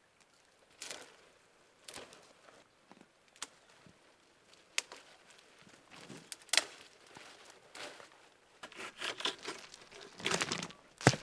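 Intermittent rustling and crinkling with scattered sharp clicks and knocks, growing busier near the end.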